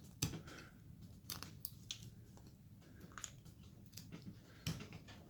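Carving knife cutting into basswood: a series of short, crisp slicing cuts, with the strongest about a quarter second in and again near the end.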